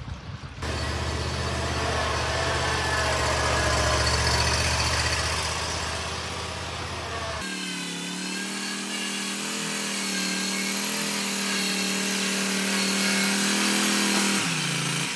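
Riding lawn mower engine running steadily at a constant speed. About halfway through the low rumble gives way abruptly to a higher, steadier engine note, which drops away near the end.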